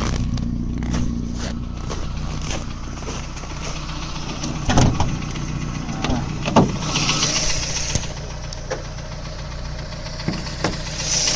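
VAZ 2109's warm four-cylinder engine idling steadily with an abnormal knocking and ringing, which the owner takes for a connecting rod ringing in the first or second cylinder. Two loud sharp knocks stand out, about five and six and a half seconds in.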